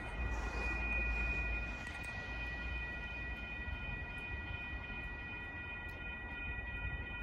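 A steady high-pitched tone made of several pitches sounding together, over a low rumble.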